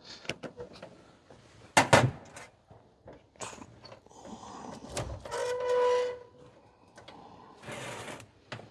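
Cabinet door and its newly fitted cam lock being worked to test the lock: a loud double knock about two seconds in, lighter knocks and clicks after it, and a short squeak just after five seconds.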